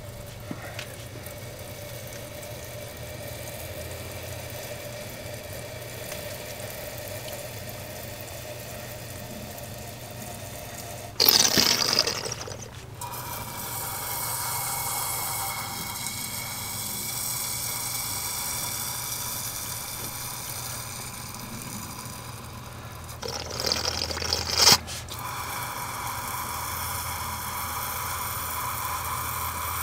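A thin stream of gasoline squirted from a squeeze bottle into the cylinder bores of a slant-six engine block with the head off, splashing and pooling on the piston tops as each cylinder is filled for a liquid leak test of the rings. Twice, about 11 and 23 seconds in, there is a louder spraying burst.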